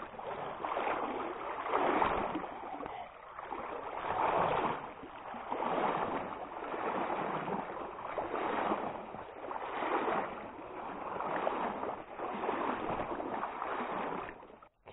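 Wading through a stream: water swishes and surges around the legs with each stride, in regular swells about every second and a half.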